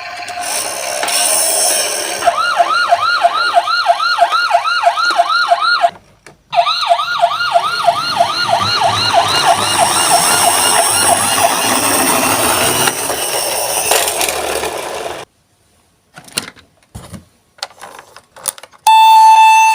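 Toy ambulance's electronic siren wailing in a fast, repeating warble of about three to four sweeps a second, with a short break about six seconds in; it cuts off about fifteen seconds in. A few faint clicks follow, and near the end a loud electronic chime tone starts.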